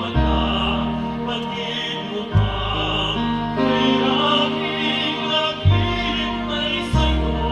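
A choir singing a slow, gentle song, with an electric bass guitar underneath playing long held low notes that change four times.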